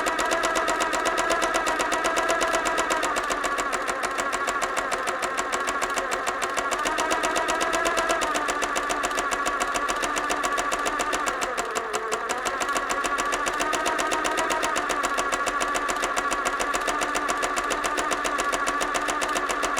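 Electric sewing machine running continuously at speed, the needle stitching in a fast, even rhythm. The motor's pitch eases down and back up a few times, dipping lowest about twelve seconds in.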